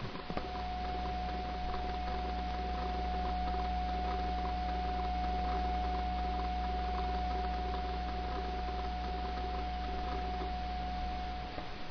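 Electroluminescent paint's power inverter giving a steady high-pitched whine over a low electrical hum, starting with a click about half a second in and cutting off with a click near the end.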